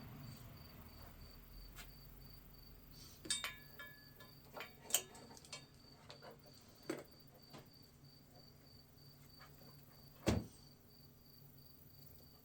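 A cricket chirping steadily in the background, with small metallic clicks and clinks from handling wire and tools around the middle and a single louder knock near the end.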